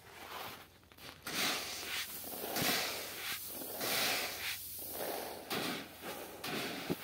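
Wheat seed grains being scooped up and poured from a plastic basin onto a heap, a dry rushing hiss. It starts about a second in and comes in repeated bouts as the grain slides and falls.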